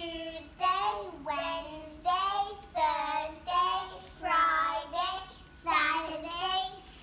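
Young children singing the days of the week in slow, evenly spaced syllables.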